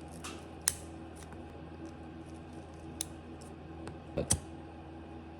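Hot cooking oil with a cigar frying in it, a low steady hum with occasional sharp pops. A pair of dull knocks comes about four seconds in.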